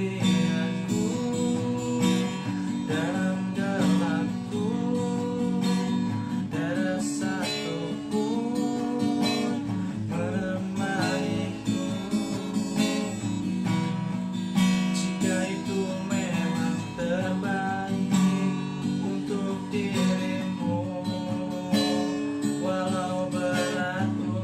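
Acoustic guitar strumming the chords of a slow pop ballad in an instrumental break between verses, with a wavering melody line above the chords.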